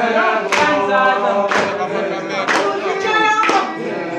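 A group of voices singing together without instruments, with a sharp beat struck about once a second in time with the song.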